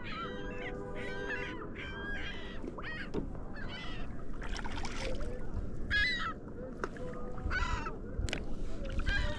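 Geese honking, a string of short calls coming every half second to a second, with a steady hum under the first two seconds.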